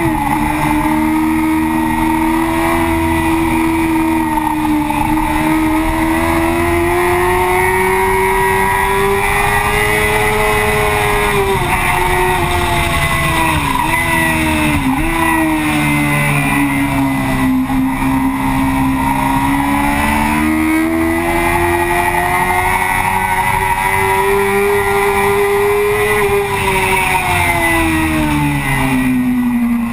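Yamaha FZ6's 600 cc inline-four engine running hard at track speed, heard from a camera on the fuel tank over a steady rush of wind. The engine pitch climbs and falls as the bike speeds up and slows, with a few quick dips near the middle and a drop near the end.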